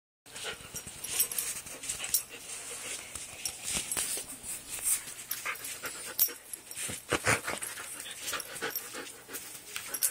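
A wolfdog spinning in circles after her own hips, with a dense run of short scuffles and clicks throughout.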